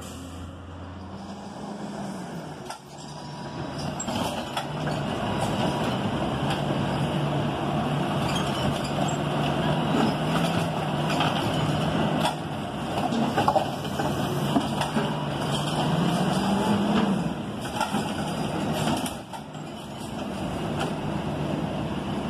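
Crane Carrier (CCC) automated side-loader garbage truck's engine running and speeding up now and then as its hydraulic arm lifts and empties curbside carts. A couple of sharp knocks come about midway.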